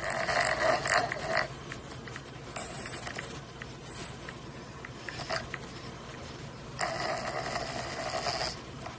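Snoring: long, rasping snores, the loudest at the start and another near the end, with shorter, weaker ones between.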